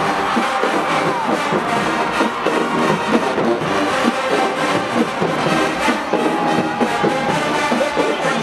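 Marching band playing loud, up-tempo music led by the brass, with many short punchy notes in a quick rhythm and a falling slide in pitch about half a second in.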